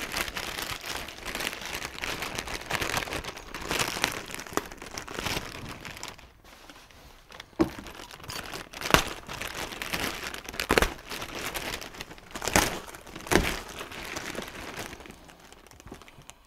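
Clear plastic bag of spoiler mounting hardware (bolts, brackets, tape) crinkling and rustling as it is handled and turned over in the hands, with several sharp clicks in the second half.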